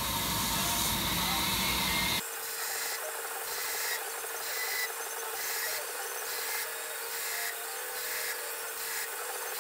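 Brass and nickel silver knife bolsters being ground and polished against a running abrasive grinder: a steady rubbing, rasping noise. About two seconds in the sound changes abruptly: the low rumble drops away, leaving a steady hum and a hiss that pulses regularly.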